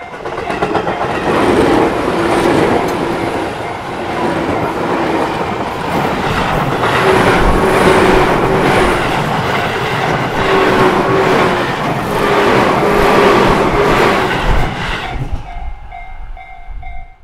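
Tobu 10030 series electric commuter train, two coupled sets, passing close by for about fifteen seconds, then fading as it clears. As the train noise dies away near the end, a level crossing's warning bell is heard again, dinging in a steady repeating pattern.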